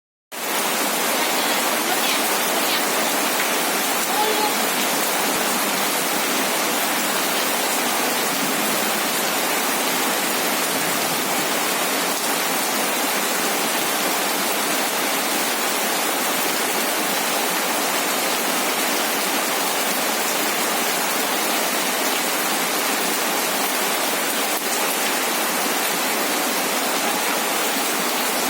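Water spraying steadily onto a birdcage to bathe the bird inside, a continuous even hiss that starts abruptly.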